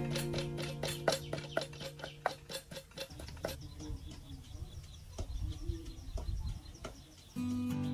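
Plucked acoustic-guitar background music with a held low note for the first few seconds. It then gives way to quieter outdoor ambience with a few scattered bird chirps, and the music starts again loudly near the end.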